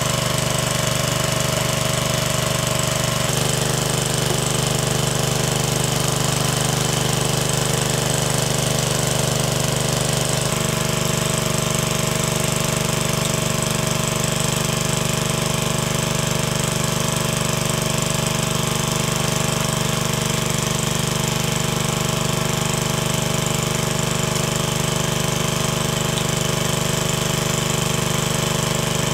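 Small engine-driven water pump running steadily at a constant speed, drawing water through its suction hose.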